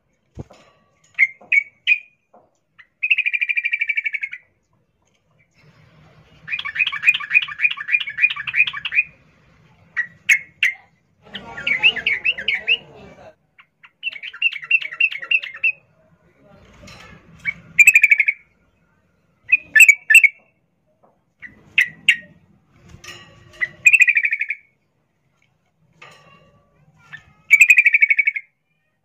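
Female yellow-vented bulbul calling in breeding condition, a call used to draw a male. Phrases of quick repeated notes, each a second or two long, alternate with short single sharp notes.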